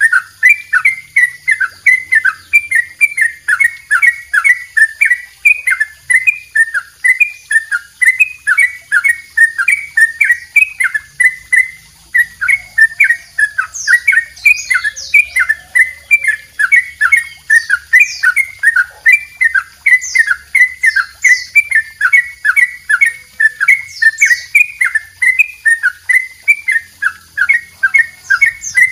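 Yellow-vented bulbul (trucuk) singing a long, unbroken 'double ropel': short, rapid chirping notes repeated at about three to four a second.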